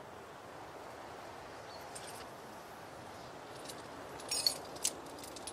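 Metal climbing gear clinking: a faint clink about two seconds in, then a louder jingle about four and a half seconds in and a single click just after, over a faint steady hiss.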